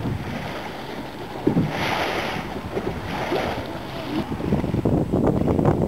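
Wind buffeting the microphone over sea water sloshing around a small boat, with two brief surges of hiss about two and three seconds in.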